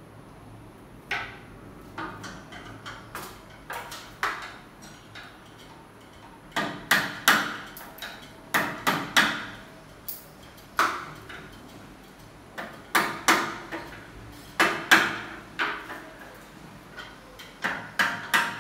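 Hammer blows at an aluminium window frame being fitted, sharp strikes with a short metallic ring. They come in irregular bursts of two to four, heavier and more frequent from about six seconds in.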